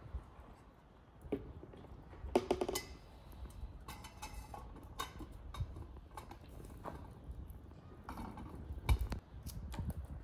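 Scattered clicks and knocks of a metal samovar being handled and its lid fitted, with a louder clatter about two and a half seconds in and another about nine seconds in.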